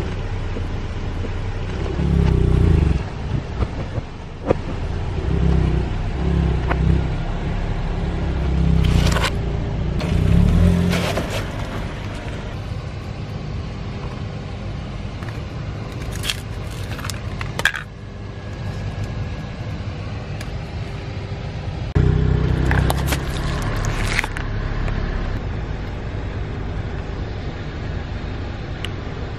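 Škoda car's engine running, swelling louder in several bursts as the car rolls over objects on asphalt. A few sharp cracks and crunches come between, from things being crushed under the tyres.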